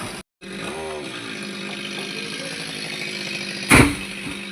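Chainsaw engine running steadily at a low, even speed, with a brief loud rush of noise about three and a half seconds in.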